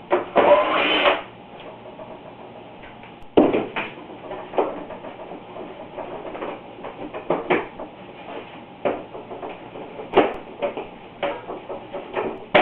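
Plastic side panel of a dehumidifier being worked free of its tabs by hand: a scraping rattle about half a second in, a sharp knock a few seconds later, then scattered clicks and taps of plastic being handled.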